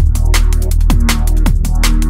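Electronic background music with fast drum hits over a heavy, sustained bass and repeated falling pitch sweeps.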